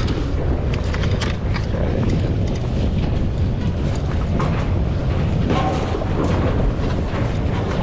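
Steady low rumble of wind buffeting the microphone, mixed with a Sea-Doo GTX Limited 300 personal watercraft idling as it eases away from a dock.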